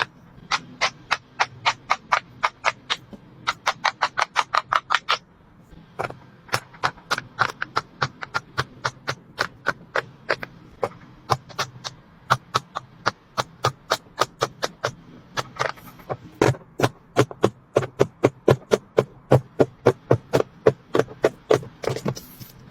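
Silicone push-pop bubble fidget toys (pop-its) being popped bubble by bubble in quick succession: a fast run of sharp pops, about four to five a second, with a brief pause about five seconds in.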